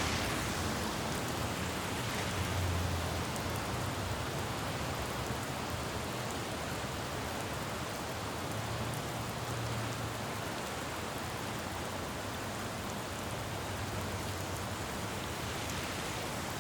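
Steady rain falling on a city road, with a low traffic rumble that swells and fades about three times as vehicles pass on the wet street.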